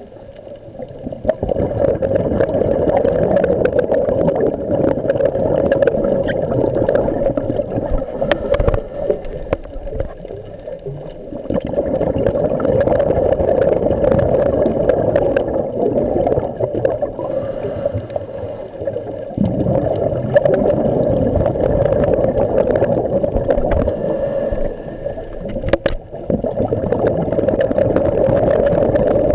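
A scuba diver breathing underwater, heard through the camera. A short hiss of inhaling through the regulator comes about every eight seconds. Each is followed by a longer gurgling rumble of exhaled bubbles.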